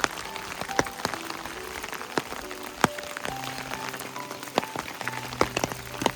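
Rain falling, with many individual drops hitting sharply and irregularly, under soft background music of held notes.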